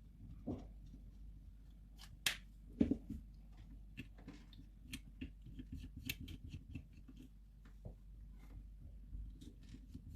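Small clicks and light taps of small tools on the disassembled camera's parts: two sharper clicks a little over two seconds in, then a run of faint quick ticks.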